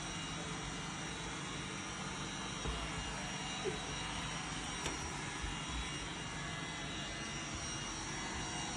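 Roomba robot vacuum running with a steady whirring hum and whine, with a few faint knocks near the middle.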